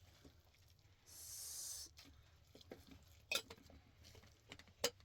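A spoon and dish clinking with a few scattered sharp taps, as food is eaten from a bowl. A short, high hiss lasts just under a second, about a second in.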